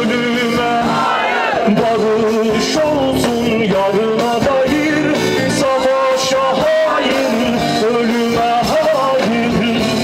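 A man singing a Turkish song into a microphone over a live band with guitar, amplified through a PA.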